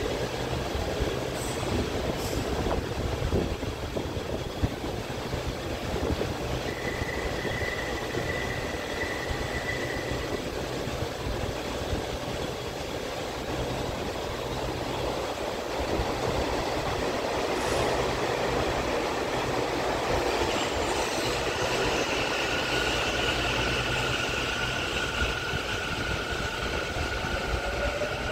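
Taichung MRT Green Line metro train at the station platform, with a steady high tone sounding for about four seconds. In the second half the train pulls out, its electric traction motors giving a whine that rises in pitch near the end over the rumble of the train.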